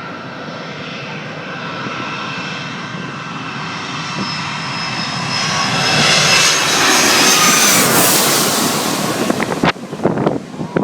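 Boeing 757 jet airliner on landing approach passing low overhead. The engine noise and whine grow steadily louder, peak a few seconds before the end with the whining tones falling in pitch as it passes, then break up into wind buffeting on the microphone near the end.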